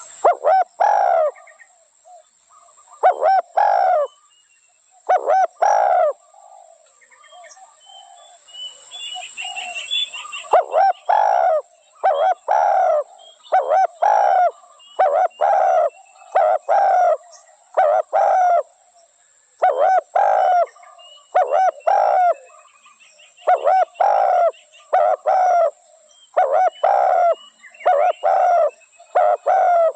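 Spotted dove cooing over and over in short phrases of two or three coos, with a pause of a few seconds about a third of the way through.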